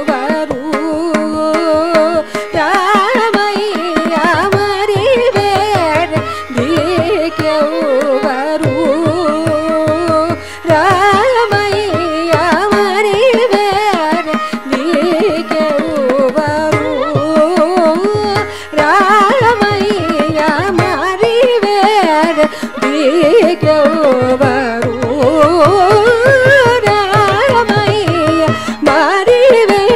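Carnatic classical music in raga Latangi, khanda chapu tala: a continuous melody line with fast wavering pitch ornaments over regular low drum strokes.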